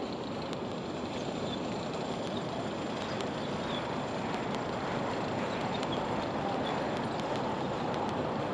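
Steady rush of passing road traffic, slowly growing a little louder, with a few faint ticks.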